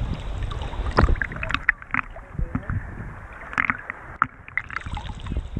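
Sea water lapping and splashing against a floating action camera's housing at the surface, with irregular sharp slaps; the sound turns muffled through the middle as the top end drops away.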